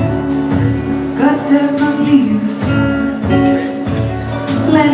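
Live band music with singing voices holding and sliding between sustained notes.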